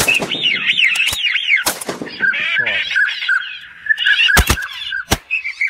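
A flock of ducks calling overhead, many wavering, repeated calls overlapping, with shotgun shots cracking through: a couple early on, then two in quick succession about four and a half seconds in and one more shortly after.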